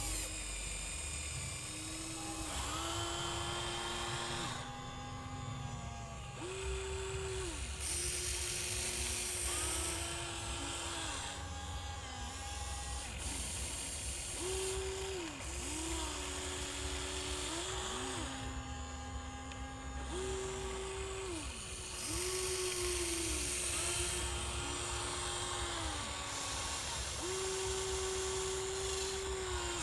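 Small electric motors of a Huina 1594 RC excavator whining in repeated stretches of one to three seconds, the pitch sliding down or up as each movement starts and stops, over a steady low hum.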